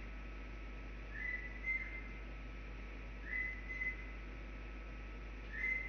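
Three short whistled notes about two seconds apart, each sliding up briefly and then holding steady at a high pitch, over a faint steady background hum.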